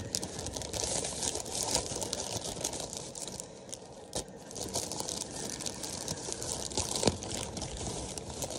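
Sandwich wrapping being pulled open by hand, crinkling and tearing in a continuous run of small crackles.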